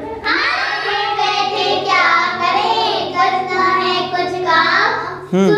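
Children singing a song.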